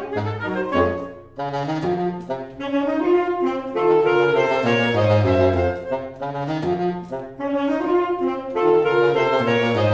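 Saxophone quartet playing in several parts, a baritone saxophone carrying the low bass line under the higher saxophones. The sound drops off briefly about a second in, then all four come back in.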